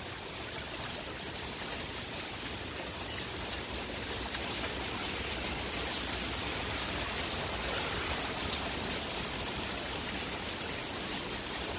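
Heavy rain pouring down in a steady, even hiss, building slightly in the first few seconds and then holding steady.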